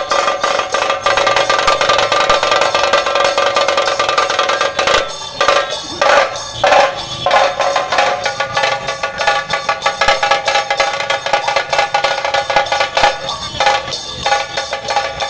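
Dhol-tasha group drumming: large barrel dhols and tasha drums struck with sticks in a fast, dense, ringing rhythm, with a few brief breaks in the pattern.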